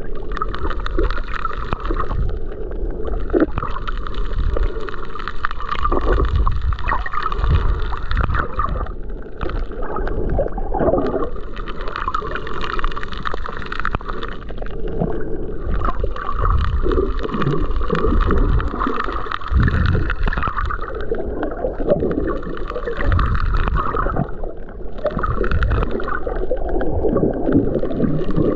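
Shallow-water surge heard by a submerged camera: steady gurgling and sloshing with a low rumble, swelling and easing every few seconds as the waves pass overhead.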